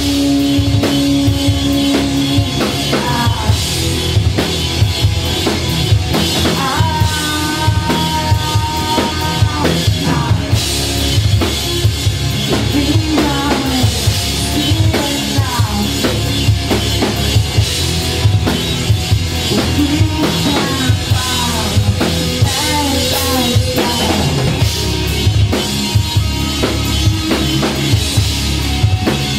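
Live rock band playing loud: a drum kit with kick and snare driving a steady beat under distorted electric guitars and bass.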